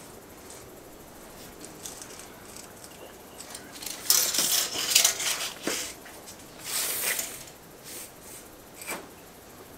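Steel tape measure blade being pulled out and slid across a marble worktop, in short scraping bursts about four and seven seconds in, with a couple of sharp clicks.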